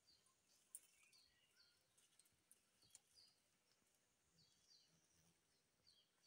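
Near silence in forest: faint high bird chirps in repeated pairs, with a few small clicks, the loudest about a second in.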